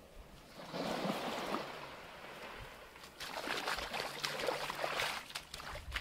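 Small waves washing up the sand at the water's edge, with a swash about a second in and a longer crackling wash from about three seconds.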